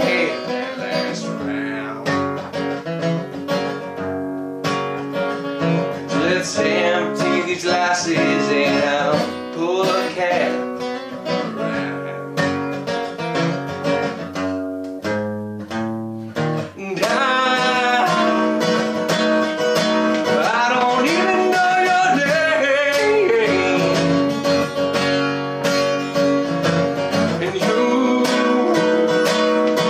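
Martin steel-string acoustic guitar strummed and picked in a country-blues style. The playing thins out about halfway through, then comes back fuller and louder.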